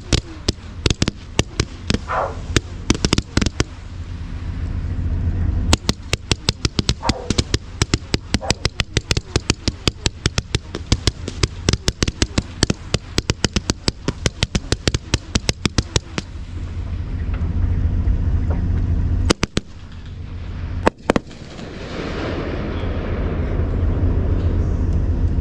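Fireworks crackling: long runs of rapid sharp pops in quick succession, then two heavier bangs about twenty seconds in, over a steady low rumble that grows louder near the end.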